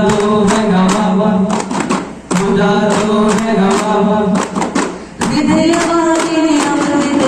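Daff frame drums struck in a quick rhythm by a troupe of performers, under voices singing a devotional song in phrases, with short breaks about two seconds in and about five seconds in.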